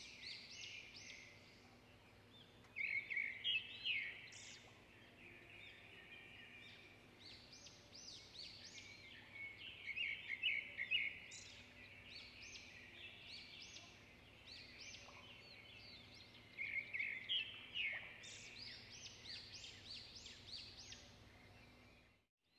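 Birds chirping: quick runs of short, high calls, loudest in clusters about every seven seconds, over a faint steady low hum.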